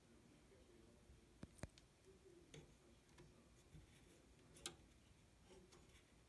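Near silence: room tone broken by about seven faint, irregular clicks, the sharpest about a second and a half in and about two-thirds of the way through.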